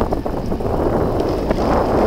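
Wind buffeting the microphone of a moving motor scooter, a steady rushing noise over a low rumble from the scooter and road.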